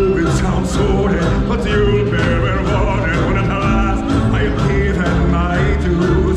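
Loud stage-show music with a steady beat.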